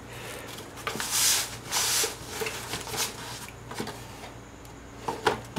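Handling noise of a cardboard box and a fabric pouch being moved and rubbed by hand: a few short rustling scrapes in the first half, then scattered light taps.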